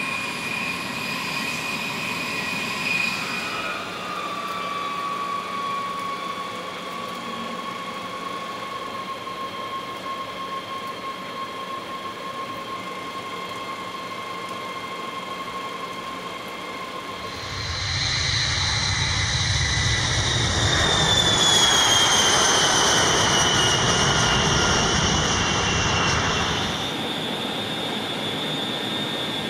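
B-52H Stratofortress TF33 turbofan jet engines running on the ground with a steady high-pitched whine; a little after 3 s one tone slides down and holds. About 17 seconds in, a louder rushing jet noise comes in with whining tones that slide downward, easing back off near the end.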